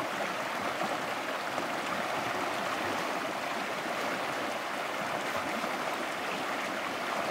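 Shallow mountain stream rushing and splashing over rocks, a steady, even water noise.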